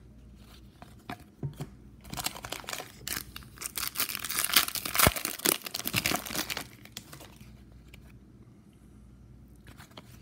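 Foil trading-card pack wrappers crinkling and rustling, with tearing, for about four and a half seconds from two seconds in, as a pack is taken from the box and opened; a sharp click near the middle. A few light taps of cards being handled before and after.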